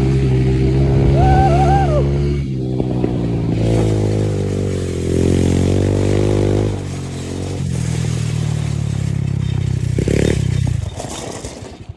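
ATV engine running, its pitch stepping up and down several times as the throttle changes, then dying away near the end.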